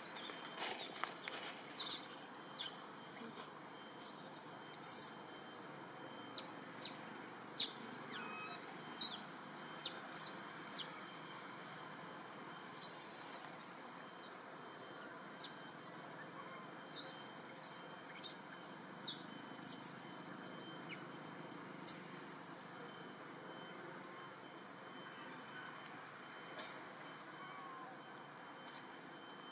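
Baby macaque crying in a run of short, high-pitched squeaks, many in quick succession at first, then fewer and fewer until they stop about two-thirds of the way through as it settles to nurse.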